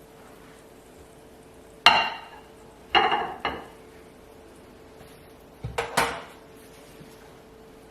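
Metal utensils and cookware clinking and clattering: a sharp ringing strike about two seconds in, two more around three seconds, and a double clatter near six seconds, over a faint steady hum.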